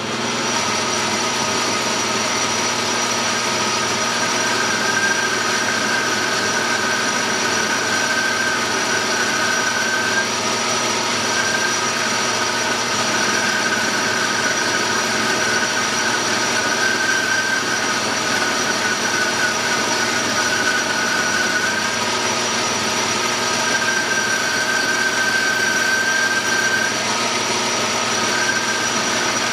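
Metal lathe running steadily at speed, its motor and gearing giving a constant hum with several steady tones, while a turning tool cuts a thin metal pin; a higher whine comes and goes through it.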